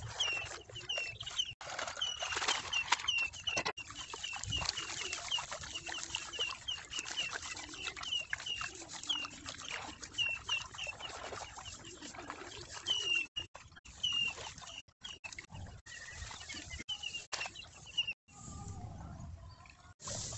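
A small bird calling over and over in short high chirps, about three a second, stopping near the end, over splashing and rustling from hands working rice seedlings in a flooded paddy nursery.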